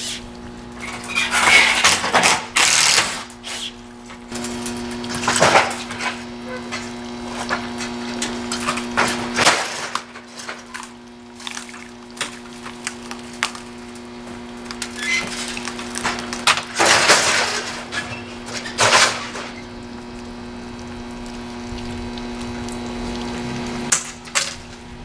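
Metal greenhouse frame parts clanking and clattering as they are taken apart and handled, in several separate bursts, over a steady hum.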